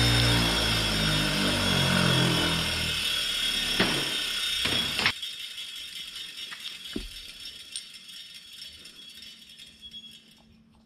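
Bench grinder, fitted with a green grinding wheel and a wire brush, switched off and coasting to a stop. Its hum falls steadily in pitch over about five seconds, with a few sharp clicks and rattles as it slows, then fades away with only faint clicks.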